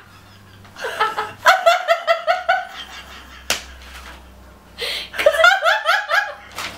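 Two women laughing hard: a long run of breathy, pulsing laughter about a second in, a single sharp tap midway, then another long peal of laughter near the end.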